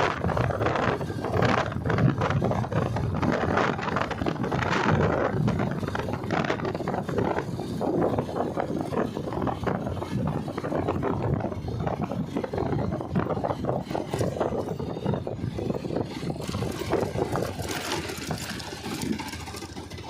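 Machinery running with dense, irregular rattling and scraping, easing slightly near the end.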